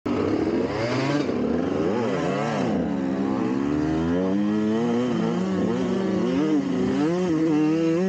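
Dirt bike engine revving up and down while riding on a trail, its pitch rising and falling with throttle and gear changes, then running steadier in the second half.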